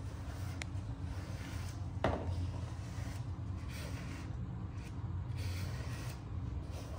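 A grooming brush rubbing through a cat's fur in repeated strokes, over a steady low rumble, with one sharp tap about two seconds in.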